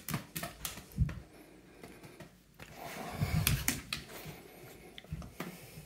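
A dog moving about on a hardwood floor under a person's hand: light clicks and taps, a dull thump about a second in, and soft rustling of fur around three seconds in.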